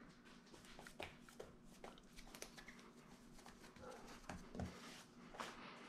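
Near silence, with faint soft pats and taps as hands press and stretch a pizza dough ball out on a floured stone countertop, over a faint steady hum.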